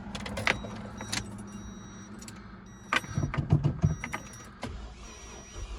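Scattered clicks and knocks with keys rattling, densest about three to four seconds in, as the car is readied to crank.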